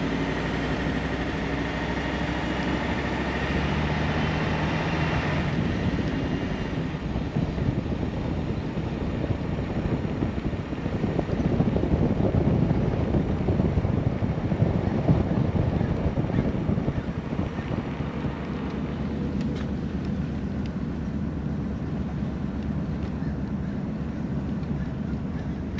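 1965 Bentley S3's V8 engine under way while driving, its note rising over the first few seconds. It then gives way to rushing wind and road noise, which is loudest around the middle.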